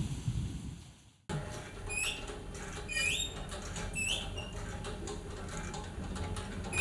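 Rain and thunder rumble fade out over the first second, then after a sudden cut, short squeaky chirps, each rising and then holding its pitch, repeat about once a second over a low steady rumble.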